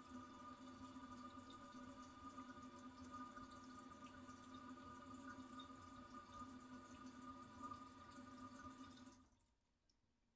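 Toilet cistern refilling after a flush: water running through the fill valve with a steady whine. It cuts off abruptly about nine seconds in as the valve shuts off.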